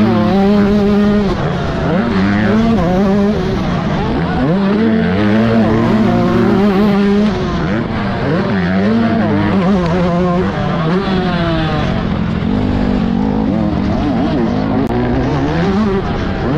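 2022 Yamaha YZ125's single-cylinder two-stroke engine under hard riding on a motocross track, its pitch climbing and dropping again and again with throttle and gear changes, heard from a camera mounted on the bike.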